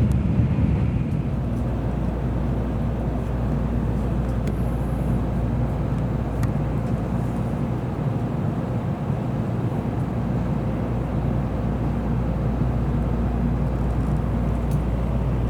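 Steady running rumble of a moving train, with a low steady hum under it and a few faint ticks.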